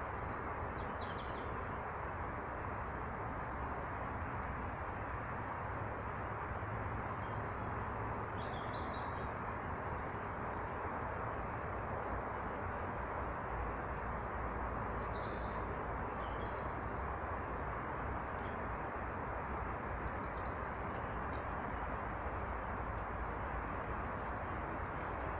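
Small birds giving short, faint chirps here and there over a steady rushing background noise.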